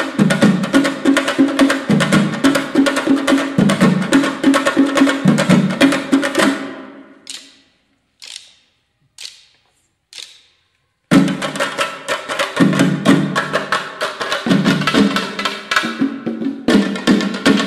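Chenda melam: a group of chenda drums beaten with sticks in fast, dense rolls. About six seconds in the drumming dies away to four single strokes about a second apart, then the full ensemble comes back in suddenly about eleven seconds in.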